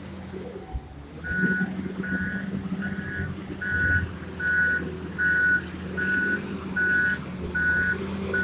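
Reverse alarm of a Komatsu WA320 wheel loader beeping steadily, about three beeps every two seconds, starting about a second in, over the loader's diesel engine running. A short hiss comes just before the beeping starts.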